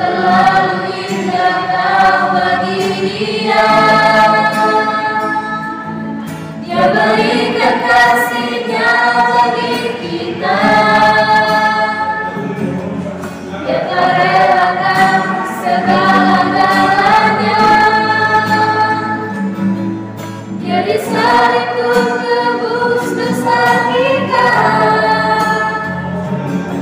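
Youth choir of teenage boys and girls singing an Indonesian-language hymn, accompanied by an acoustic guitar, in sung phrases of about six to seven seconds with brief breaths between them.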